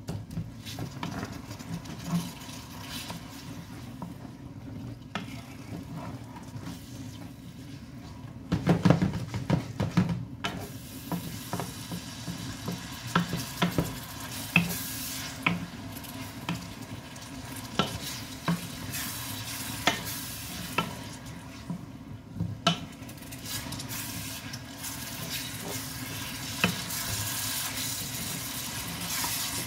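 Minced pork frying and sizzling in a non-stick frying pan while a wooden spatula stirs and scrapes it, with scattered short knocks of the spatula against the pan. The sizzling hiss grows stronger in the second half.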